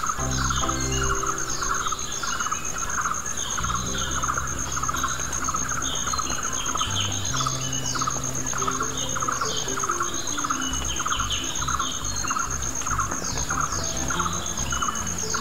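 Birds chirping with quick falling calls over a steady high trill and a lower pulsing chirr about two to three times a second, with soft background music of low held notes.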